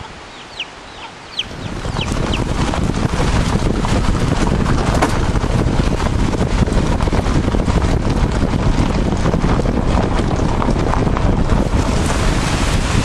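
Chicks peeping: a quick run of short, high, downward-sliding peeps in the first second and a half. Then a loud, rumbling buffeting of wind on the microphone takes over for the rest.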